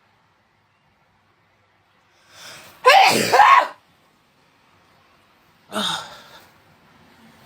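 A woman sneezes, set off by a nasal swab: a quick breath in, then one loud forceful sneeze about three seconds in, followed a few seconds later by a shorter, weaker second sneeze.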